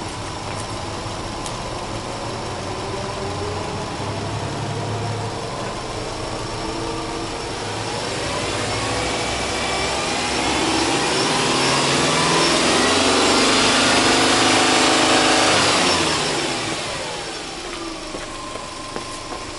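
Subaru Legacy B4's flat-four boxer engine, heard at the open engine bay, idling and then free-revved. The pitch climbs slowly over several seconds, holds high for about four seconds, then drops quickly back to idle.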